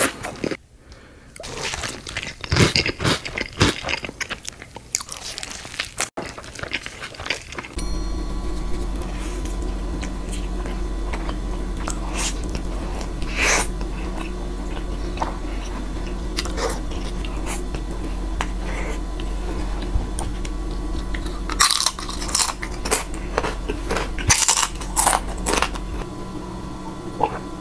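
Close-miked eating sounds: crunchy bites and chewing of a burrito eaten with Flamin' Hot Cheetos, then after about eight seconds sparser bites and chewing of a large burrito over a steady low hum.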